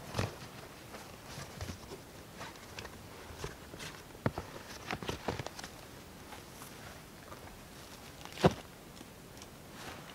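Rustling and soft clicks of a closed-cell foam sleeping pad being folded up, with footsteps on dry grass. One sharp knock about eight and a half seconds in is the loudest sound.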